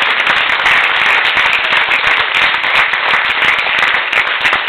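Audience applauding with dense, steady clapping, the cast on stage clapping along.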